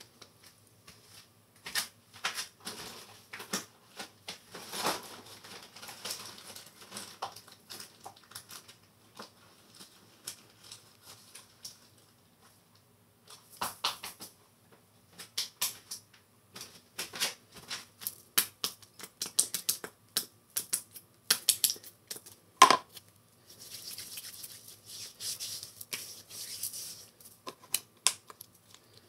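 Close handling noises: clothing rustling and a run of sharp clicks and taps from objects being picked up and set down, with one louder knock a little past the middle.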